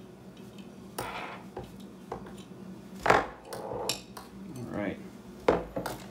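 Metal LED light pods and their mounting brackets being handled and set down on a countertop: a few clunks and clinks, the loudest about three seconds in, with rustling and scraping between.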